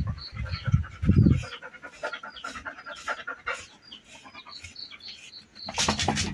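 Labrador retriever panting in quick, rhythmic breaths while a deshedding comb is pulled through its coat. Three low thumps in the first second and a half, and a louder rough rasp just before the end.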